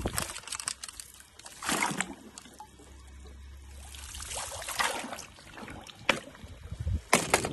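Pool water splashing and sloshing as a leaf-skimmer net is swept through it, in several short bursts.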